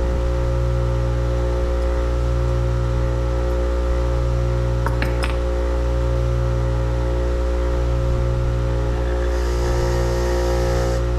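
Steady machine hum made of several fixed low tones, pulsing slowly every couple of seconds, with a few faint clicks about five seconds in.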